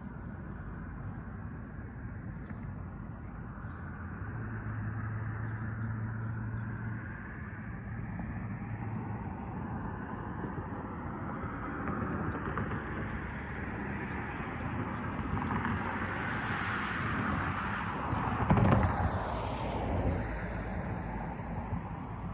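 A vehicle approaching and passing close by, loudest with a sharp knock about 19 seconds in, its sound then dropping in pitch as it moves away.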